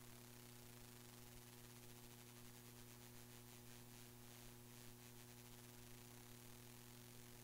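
Near silence: a dead audio feed carrying only a steady electrical hum and hiss.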